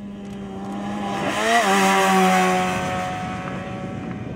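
A Trabant rally car's two-stroke two-cylinder engine passes at speed on a gravel stage. It swells to its loudest and drops in pitch as it goes by, about one and a half seconds in, with a hiss of gravel and dust thrown from the tyres.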